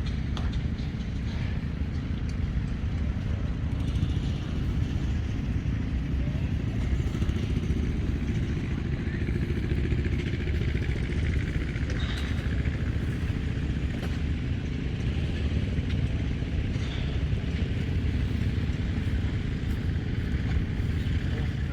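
An engine running steadily, a low, even rumble that holds at the same level throughout.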